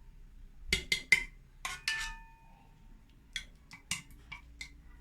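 A spoon clinking and tapping against a dish while spreading sauce: about ten sharp clinks, a few of them ringing briefly.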